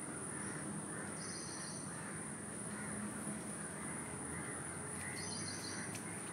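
Woodland ambience: a steady high-pitched insect drone, with birds calling repeatedly over it and two brief higher chirping calls, one about a second in and one near the end.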